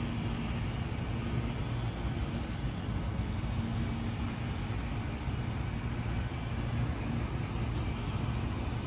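Steady low rumbling background noise with a faint hum that fades in and out; no distinct bird calls or pecking stand out.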